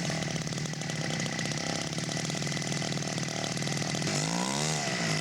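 Radio-controlled model airplane engine running steadily, with its pitch rising and falling briefly near the end as the throttle is worked.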